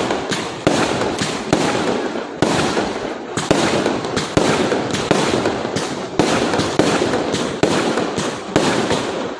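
Aerial fireworks going off in quick succession: sharp bangs about once a second over a constant crackle of bursting shells.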